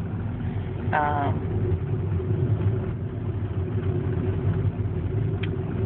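Car running while driving slowly, a steady low engine and road hum heard from inside the cabin.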